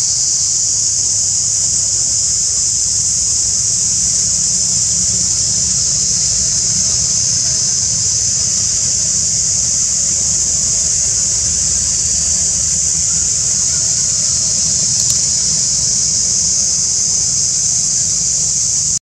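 A loud, steady, high-pitched drone of cicadas in the forest canopy, with a steady low rumble beneath it.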